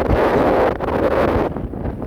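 Wind buffeting the microphone, a loud rushing noise that eases off somewhat near the end.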